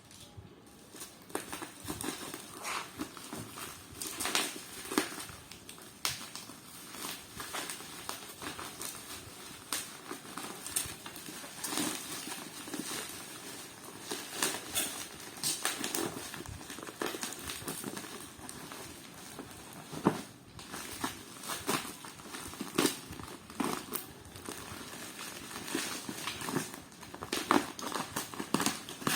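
Packaging being opened by hand: crinkling and rustling of plastic wrapping with many irregular clicks and knocks.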